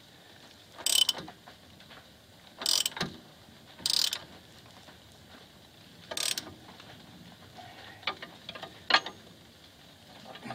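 Ratchet wrench clicking in about five short bursts as it is swung back between strokes, cranking the nut on a threaded-rod press that draws a wheel hub into a new rear wheel bearing.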